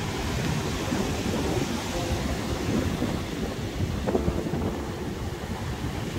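Wind rumbling and buffeting on the microphone over the steady wash of surf.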